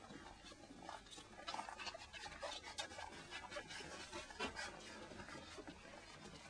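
Saluki puppies nursing: soft, irregular suckling smacks and snuffling with some rubbing of fur.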